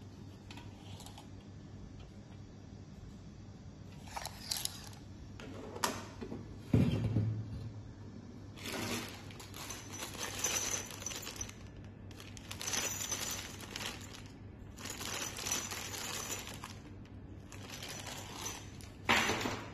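Crinkling and rustling of a small plastic bag of bolts and washers being handled, in several long stretches. Before that come a few knocks and one louder thump as the steel bracket parts are handled on a wooden table.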